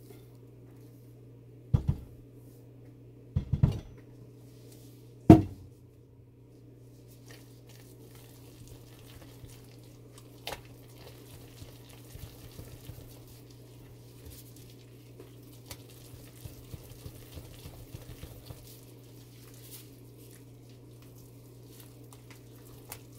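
Three sharp knocks on a stainless steel pot in the first six seconds, the last the loudest, then a silicone spatula stirring thick hot-process soap paste in the pot with soft, irregular scraping. A steady low hum runs underneath.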